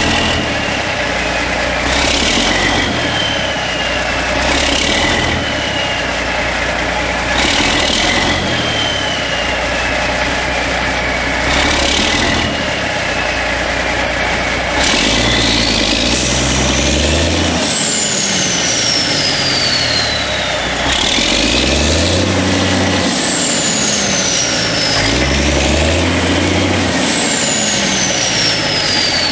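Semi-truck tractor's diesel engine revving hard again and again as its drive wheels spin in slick mud without traction. A high whine climbs with each rev and slowly falls away. In the first half short bursts of hiss come every few seconds.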